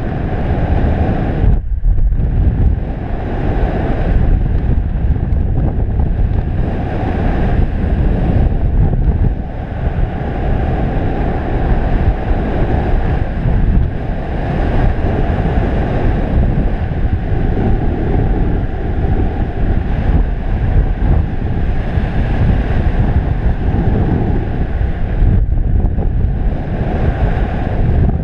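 Wind rushing over the camera microphone during paraglider flight: a loud, steady noise, heaviest in the low end, swelling and easing slightly.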